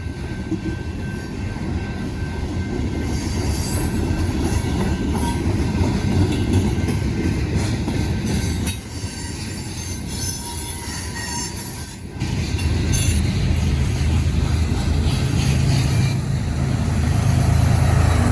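Freight train rolling past, with steel wheels rumbling on the rails and thin high wheel squeal. About twelve seconds in, the sound breaks off briefly and a louder, deeper rumble follows, with steady low tones near the end.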